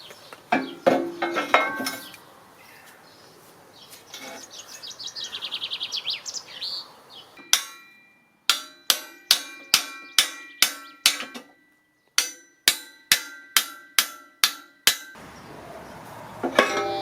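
A hammer striking steel in two runs of quick, evenly spaced blows, roughly two to three a second, each blow ringing like struck metal, after a few scattered knocks at the start.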